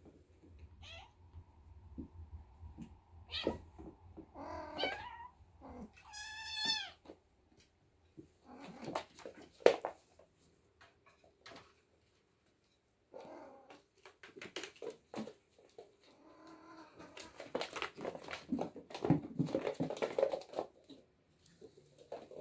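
Oriental kittens play-fighting: a few short, high meows in the first seven seconds, then scuffling, with bumps, scratching and light thuds against the floor and cat furniture.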